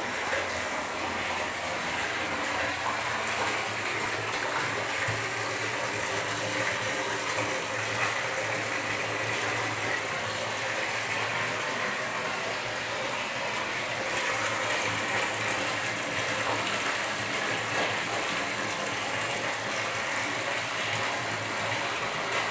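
Water pouring from a pipe and splashing into a basin below, a steady rush with no break.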